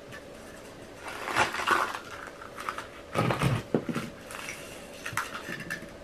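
Potting mix rustling and scraping as it is worked into a small jar around a hoya cutting, in two bursts, with a few light clicks of the jar and mix near the end.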